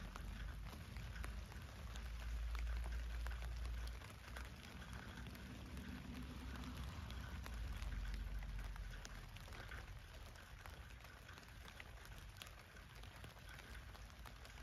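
Rain falling on a tent, heard from inside: a faint, steady hiss of drops with many small separate ticks. A deep low rumble swells twice, about two seconds in and again around seven seconds.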